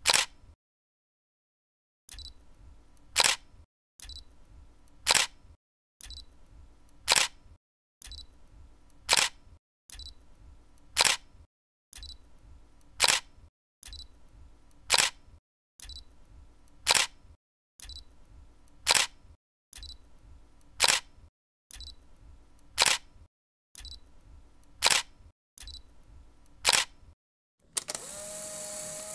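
Camera shutter clicks repeated evenly about every two seconds, fourteen in all, each a sharp snap with a faint tick just before it. Near the end a short stretch of hiss with a steady faint tone.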